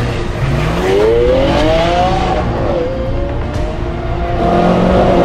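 A sports car engine revs, its pitch climbing for about a second and a half, dipping, then climbing slowly again near the end, over cinematic background music.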